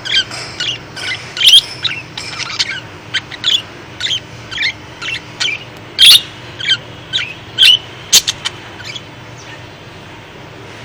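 Pet lovebirds chirping: a run of short, sharp, high chirps about two a second, stopping about nine seconds in.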